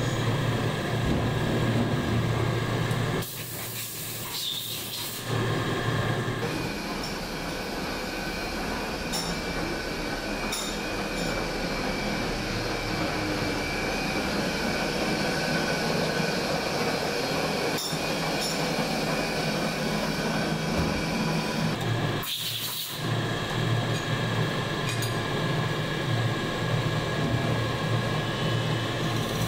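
Steady factory machinery noise, a low hum under a hiss, with a few faint ticks. The sound changes abruptly a few times.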